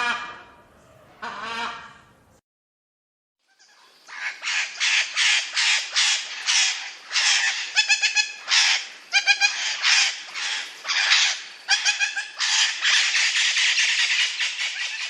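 Parrot calling: two pitched, honking calls in the first two seconds, then after a brief silence a long, dense series of loud, harsh calls, about two a second.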